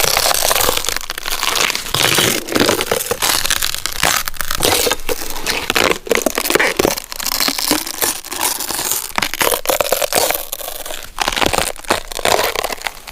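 Something being crushed by hand or by a tool: a dense, continuous run of crunching and crackling.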